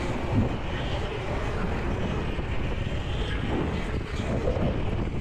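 Wind rushing over the microphone and tyre noise from an electric dirt bike riding along a street, a steady rush with no engine note.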